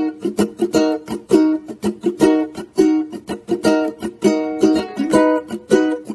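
Intro music played on a plucked string instrument: a bright run of quick plucked notes and strummed chords, several a second.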